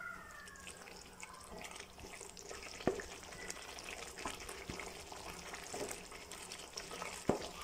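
A spoon stirring thick chicken masala gravy in a pan, with a soft wet sizzle and a few sharp clicks of the spoon against the pan, the loudest about three seconds in and near the end.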